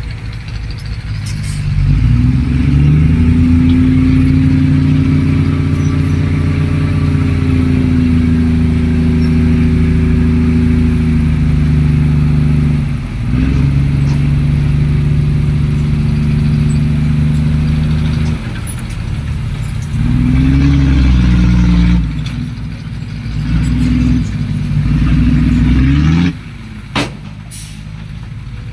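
Heavy diesel engine of earthmoving equipment revving up and holding high revs, dropping back about 13 s and 18 s in. It revs up twice more, then settles back to idle, and a sharp single click follows near the end.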